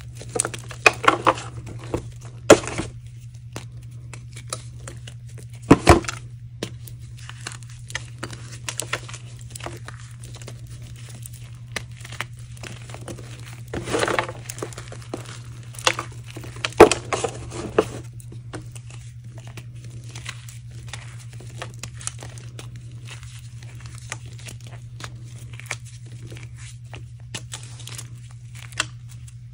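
Hands crushing and crumbling hardened, very dry reformed chalk blocks topped with mica, crackling irregularly with a few louder crunches. A steady low hum runs underneath.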